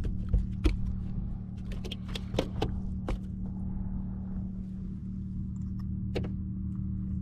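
Steady hum of the boat's bow-mounted electric trolling motor. Over it, a run of sharp clicks and knocks in the first three seconds, and one more about six seconds in.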